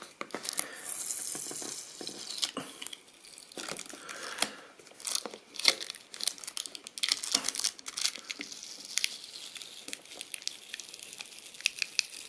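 Fingernails picking and scraping at an adhesive seal sticker on a printed cardboard box, making irregular small clicks, scratches and short tearing scrapes. The sticker has been stuck on a long time and peels off badly.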